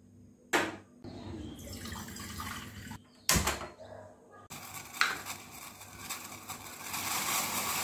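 Kitchen sounds of tea being made: water running with a hiss that grows louder in the second half, and two sharp knocks of utensils, about half a second and three seconds in.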